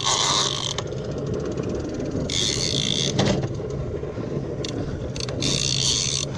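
Yamaha V6 outboard running with a steady hum while a gold Penn International II big-game trolling reel is cranked against a heavy fish. The reel gives a whirring hiss in three bursts, near the start, about two seconds in and near the end, and light ticking in between.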